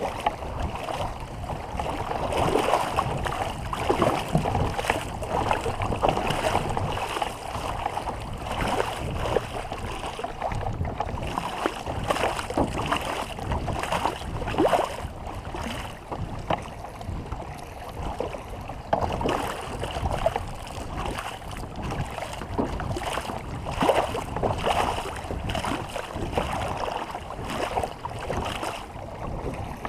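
Water splashing and rushing around a canoe under way, with wind buffeting the microphone; uneven surges every second or two.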